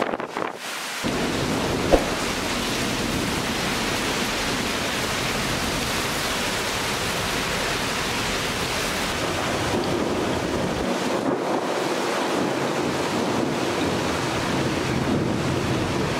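Heavy rain pouring steadily from a nor'wester storm, a continuous hiss. A brief sharp knock about two seconds in.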